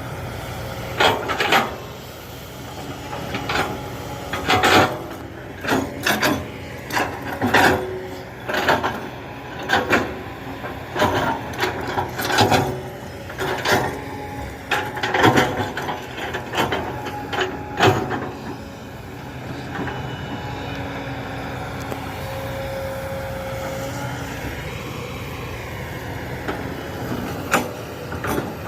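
Heavy diesel excavator engine running steadily, with a long series of sharp, loud clanks and knocks about once a second for most of the first two-thirds. Then the knocks stop and the engine runs on more evenly, with a tone that rises and falls.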